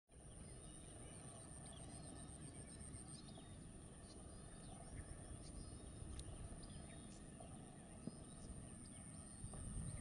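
Faint, scattered short high chirping calls from a flock of shorebirds. Under the calls runs a low steady rumble, and above them a thin high-pitched whine holds steady throughout.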